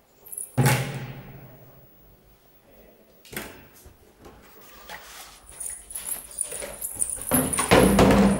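Large empty plastic water-dispenser bottle knocked about on a tiled floor: a hollow thump with a short low ring about half a second in, another knock near the middle, then rattling and scraping that build to a loud clatter near the end as the bottle tips over onto its side.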